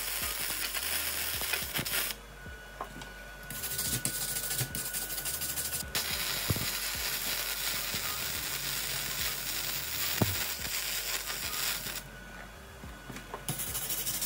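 Gasless flux-core MIG welder running test beads on scrap steel: a dense, steady crackle. It breaks off about two seconds in, runs again as one long bead of roughly eight seconds, and starts a new bead near the end.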